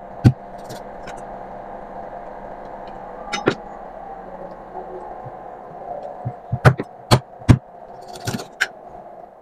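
Kitchen knife knocking against a wooden cutting board while trimming raw chicken legs: a pair of sharp knocks about three and a half seconds in and a quick cluster of four or five near the end, over a steady hum.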